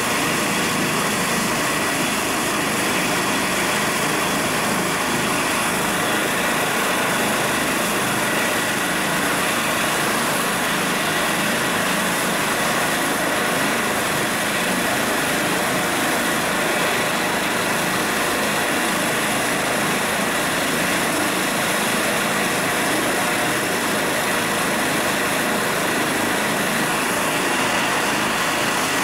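Eurocopter EC135 twin-turbine helicopter running close by with its rotors turning: a steady, even turbine whine over rotor noise.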